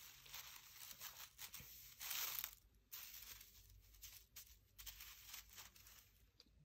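Faint rustling and light ticking of a bundle of dry spaghetti strands rubbing together in gloved hands, loudest about two seconds in.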